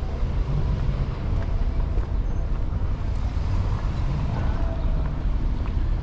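Outdoor street ambience: a steady low rumble, with faint distant voices.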